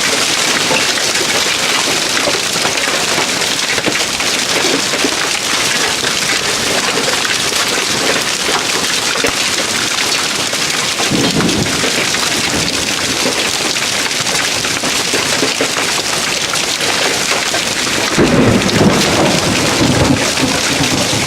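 Heavy hail pelting down in a dense, steady clatter, hard enough to batter and strip garden plants. Two low rumbles swell up under it, one about halfway through and a louder one near the end.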